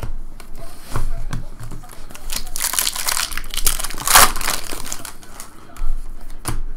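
Trading-card pack wrapper crinkling as it is handled, in two spells about two and a half and four seconds in, between short clicks of cards being handled.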